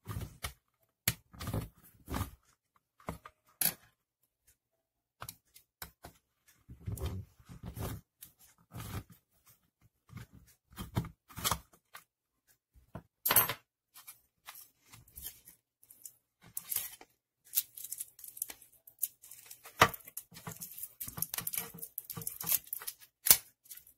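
Plastic housing of a steam iron being pried and worked loose from its metal soleplate: scattered clicks and knocks of plastic, then a denser run of scratchy clicks and scraping near the end as the housing comes away.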